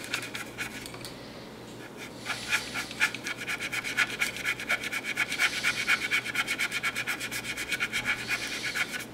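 Small paintbrush scrubbing back and forth on a painted model aircraft wing, blending in a spot of yellow ochre oil paint. The strokes come fast and even, several a second, picking up about two seconds in.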